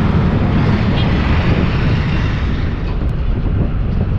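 Steady low rumble of a road vehicle in motion, with no letup.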